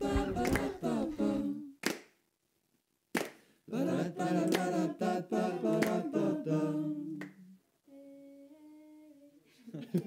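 Humming and singing without instruments, broken by a short silence with a couple of sharp clicks. A faint held tone follows near the end.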